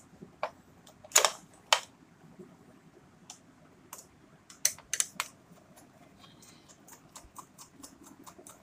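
Screwdriver fastening a screw on a plastic surface-mounted light switch box: irregular sharp clicks and scrapes of the screw and plastic, a few louder ones in the first half, then a run of small quick ticks near the end.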